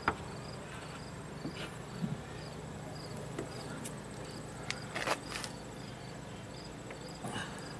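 Crickets chirping steadily in short, evenly repeated high chirps, about three a second, with a few sharp clicks and knocks from the new trunk strut being handled and lined up on its mount, the loudest a little past halfway.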